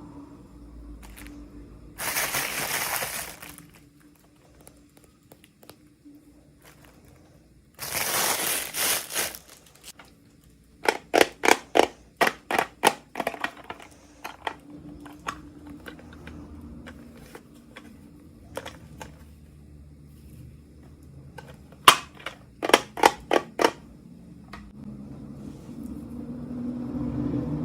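Toy packaging handled for an unboxing: two rustling, crinkling stretches of wrapper, then two quick runs of sharp plastic clicks, about five or six each.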